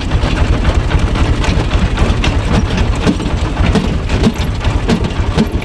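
Tractor diesel engine running steadily under load, driving a PTO screw-cone log splitter as a log is forced onto the spinning cone, with frequent sharp cracks of the wood splitting.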